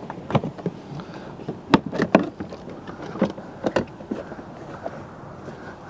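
Black plastic cover of a rooftop Dometic heat pump being worked loose and lifted off its mounting: a run of irregular plastic clicks, snaps and knocks, the sharpest about two seconds in.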